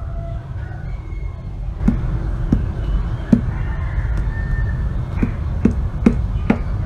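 Fingertips tapping on a paperback book's cover, about seven sharp taps from about two seconds in, over a steady low rumble.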